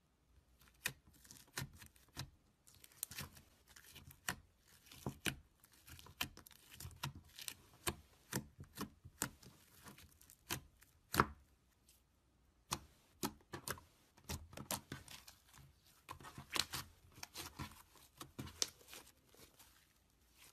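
Glossy slime being pressed, poked and stretched by hand, giving off irregular sticky clicks and pops, a few a second and sometimes in quick clusters, starting about a second in.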